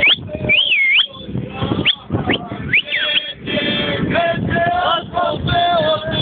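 Men singing a Bosnian song, with high sliding cries breaking in over it in the first half; in the second half the singing settles into a held, wavering line.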